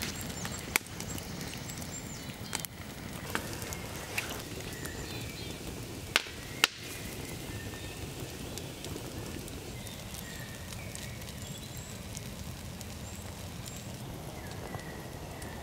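Swedish torch log fire burning under a flat stone, giving a handful of sharp pops and cracks in the first seven seconds, two loud ones close together a little after six seconds, over a steady hiss.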